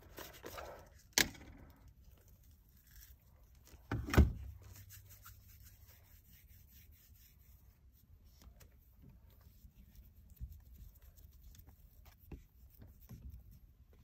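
Hands working heat-barrier putty onto a copper refrigerant line at an air handler cabinet: quiet rubbing and small scattered clicks, with a short knock about a second in and another about four seconds in.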